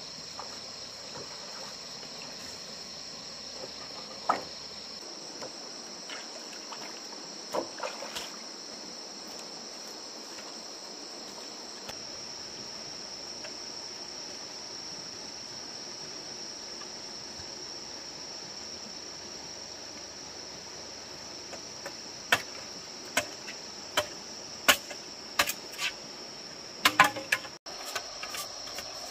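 Steady high-pitched chirring of crickets or similar insects. Sharp knocks break in a few times, then come in a quick run of about eight in the last several seconds.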